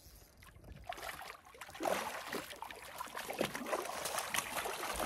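Hooked coho salmon thrashing and splashing in shallow water against shore ice. The splashing picks up about two seconds in and keeps going in quick, irregular bursts.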